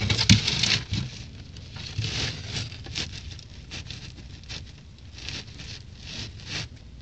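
Irregular rustling and scraping, loudest in the first second, then short crisp sounds in the second half as an iguana bites into a banana held out to it.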